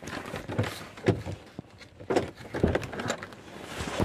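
Scattered clicks and thumps of handling inside a parked car's cabin, with the engine switched off.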